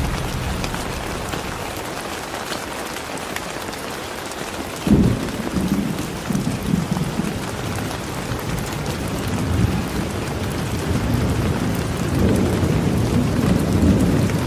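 Steady rain falling, with thunder: a sudden low crack about five seconds in that rolls on for a couple of seconds, and another low rumble building near the end.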